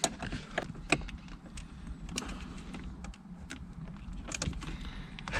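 Irregular light clicks and taps of hands working plastic car interior trim and switch fittings, about a dozen scattered through the stretch.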